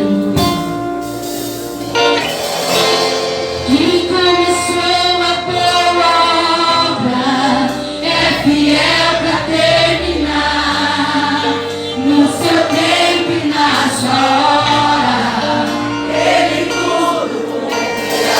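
Music with singing voices, choir-like, over sustained chords and a low bass line.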